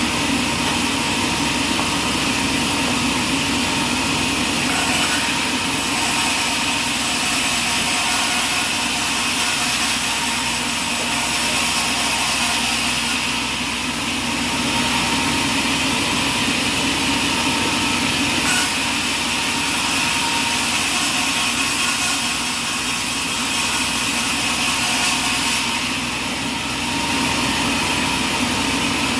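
Sawmill machinery running steadily: a continuous engine-and-saw noise carrying a few steady pitched tones, dipping slightly twice.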